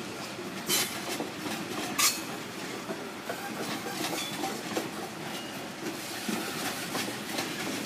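Coal train wagons rolling past on the rails: a steady wheel-and-track noise with two sharp metallic clanks, about one and two seconds in.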